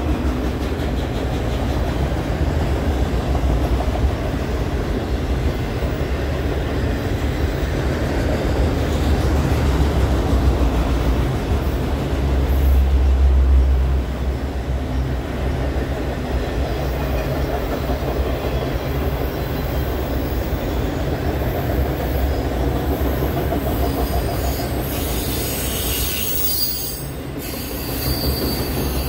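Loaded freight train of autorack cars rolling past at close range: a steady rumble of steel wheels on the rails, with high wheel squeal coming in near the end.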